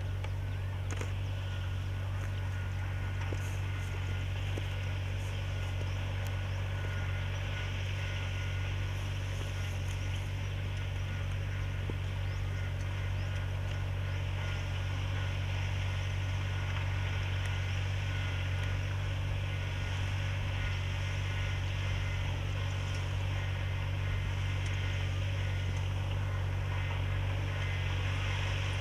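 Sakpattana FourJet S self-propelled boom sprayer running steadily, its engine droning evenly under a faint hiss of spray from the boom nozzles.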